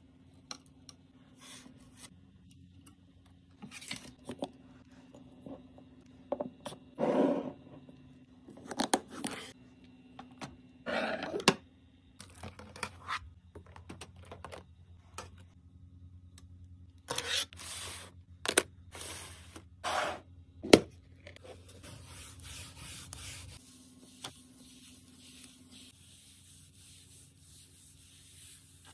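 Household items being handled and set in place: scattered knocks, clicks, scrapes and rustles. From about three-quarters of the way in, a steady hissing rub, a cloth wiping a smooth countertop.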